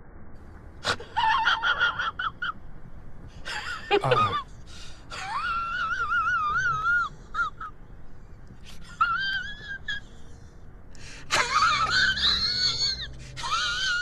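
High-pitched, wavering squeals and shrieks from children playing in breaking waves, about six in a row, some drawn out for a second or two.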